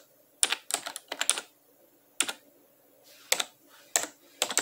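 Typing on a computer keyboard: irregular clusters of keystrokes with short pauses between them, as sign-in details are entered.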